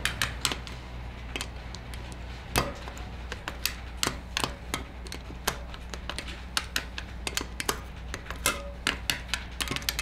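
Tusk click-type spoke torque wrench ticking and tapping against the spoke nipples of a dirt bike's wire-spoked wheel, a run of many light, irregular metallic clicks as the spokes are tightened in turn. The wrench's click marks a spoke reaching its set torque of 55 inch-pounds.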